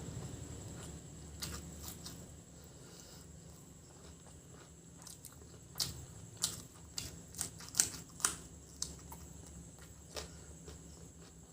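Close-miked eating sounds of a person chewing chicken biryani and egg masala: wet mouth clicks and smacks, a few early on and a quick run of them past the middle.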